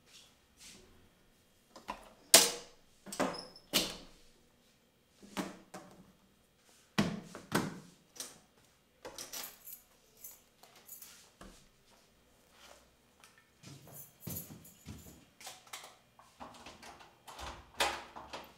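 Household handling sounds: a string of sharp knocks, clicks and rustles as things are picked up and set down, ending near the end with the clack of the front door being handled.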